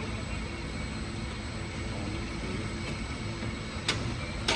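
Steady garage background hum, with two sharp metallic knocks about half a second apart near the end, from tools at work on the exhaust.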